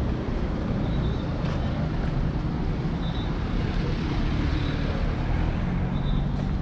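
City street traffic: a steady rumble of car engines and tyres around the listener.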